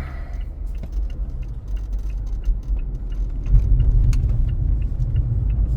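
Road rumble inside a moving 2023 Mazda CX-5's cabin, with short high squeaks repeating about two or three times a second, a creak from around the windshield. It creaks even on a smooth road.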